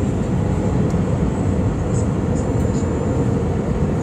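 Steady cabin noise of an Airbus A319 airliner on approach to landing: a constant rush of engine and airflow heard inside the cabin from a window seat over the wing, with a few faint steady tones in it.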